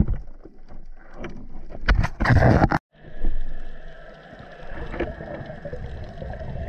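Underwater sound heard through a camera housing: irregular knocks and loud rushes of water while a speared octopus is handled at the spear tip. After an abrupt cut about three seconds in, a steady underwater hiss.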